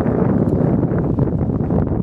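Wind buffeting the microphone, a steady heavy rumble with no speech.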